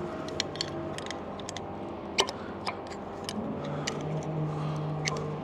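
Scattered light metallic clicks and taps of tools and brake hardware as a retaining clip is worked back into place, with the sharpest click about two seconds in, over a steady low hum.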